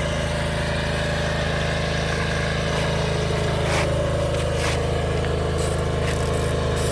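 An engine idling steadily, with scattered light clicks and taps from about three seconds in, as the removed starter motor is taken apart.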